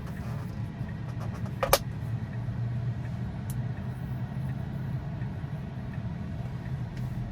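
Road and tyre noise in the cabin of a 2020 Tesla Model 3 Performance on the move: a steady low hum, with one brief sharp click about two seconds in.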